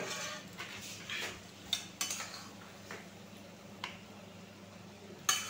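Long steel spatula clinking and scraping against a steel pan and a ceramic plate as curry is served out: several sharp clinks, with softer scraping between.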